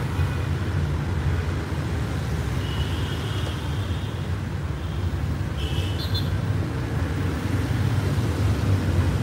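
Car cabin noise in traffic: the engine and tyres make a steady low rumble. Two brief high tones sound through it, about three and six seconds in.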